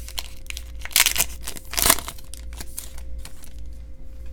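Baseball trading cards being flipped through by hand: card stock sliding and ticking against card stock, with two louder swishes about one and two seconds in.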